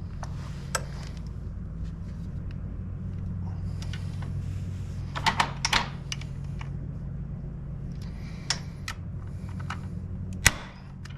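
Scattered light clicks and taps of hand tools being handled, with a cluster of them about halfway through and one sharper click near the end, over a steady low hum.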